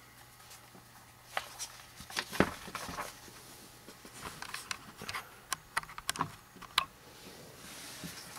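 Handling of a paper instruction booklet on a tabletop: scattered short clicks, taps and paper rustles as the pages are opened and pressed flat, in two small clusters.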